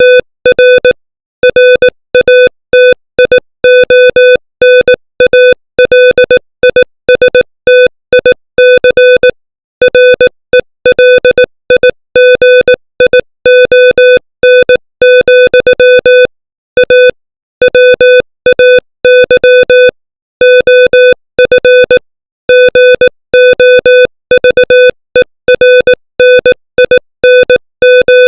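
Morse code at 18 words per minute: one electronic beep tone keyed on and off in short dots and longer dashes, with brief gaps between letters and longer pauses between words.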